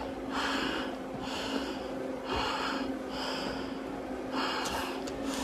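Heavy breathing through a firefighter's SCBA face mask and regulator during a long stair climb: about five hissing breaths, roughly one a second, over a steady low hum.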